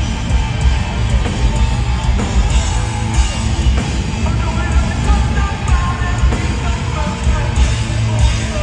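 Live heavy metal band playing at full volume, with distorted electric guitars, bass and drums, heard from the audience with a heavy, booming low end.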